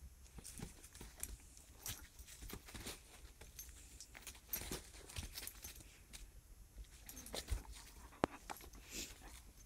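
A dog and a horse scuffling on straw: irregular rustling, crackling and small knocks as they move about and the dog rolls and scrambles, with a sharp tick about eight seconds in.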